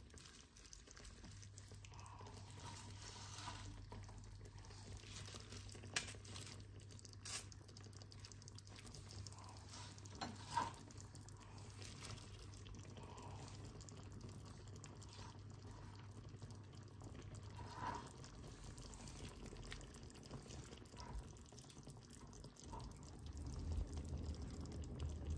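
Faint simmering of a pan of tteokbokki sauce, with scattered small pops and ticks and a few soft clicks as lettuce leaves are piled on by hand. A low steady hum runs under it and stops about two-thirds of the way through.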